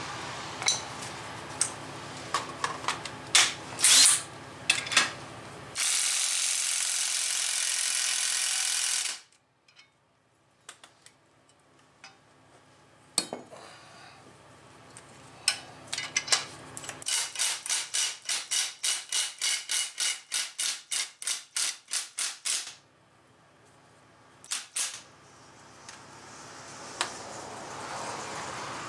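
Hand tools and steel bearing-press adapters being handled on a concrete floor: scattered metallic clinks and knocks, a steady rushing noise for about three seconds, then a run of about seventeen evenly spaced clicks, roughly three a second.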